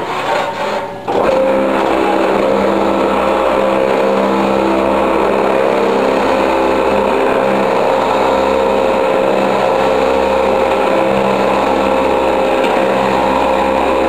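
Electric vibrator motor of a Usimak BC1210 concrete block machine switches on about a second in and runs at a steady hum. It shakes the block mould as the concrete mix is poured in and compacted.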